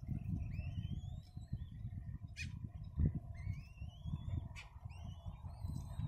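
Kite nestlings begging while being fed: short runs of thin, rising whistled calls, over a constant low rumble.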